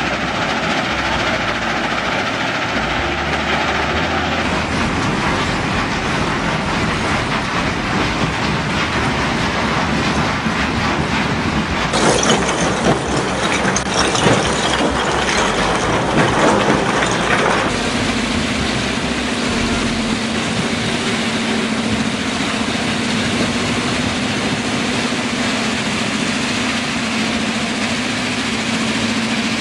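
Stone crushing and screening plant running, a steady dense clatter of crushers, screens and conveyor belts. About midway, crushed andesite rock clatters louder for several seconds as it pours off a conveyor belt. After that a steady low hum runs under the machinery noise.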